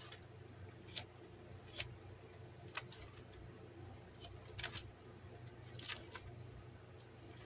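Faint handling noise: scattered light clicks and taps, roughly one a second, over a low steady hum.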